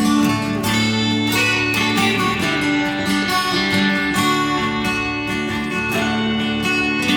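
Background music led by plucked, strummed acoustic guitar.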